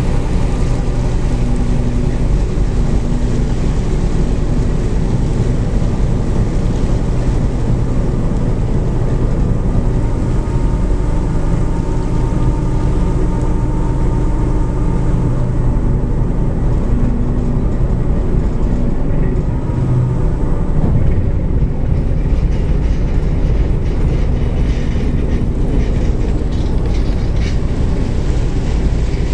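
Car ferry's diesel engines running steadily as the ship comes alongside the quay to berth: a loud, deep, even drone with a steady hum.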